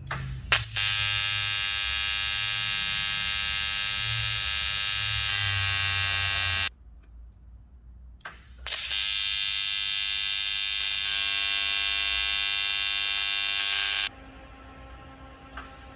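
TIG welding arc on aluminium: a steady, high electric buzz. It is struck with a sharp crack, runs about six seconds and stops. After a short pause it is struck again and runs about five more seconds.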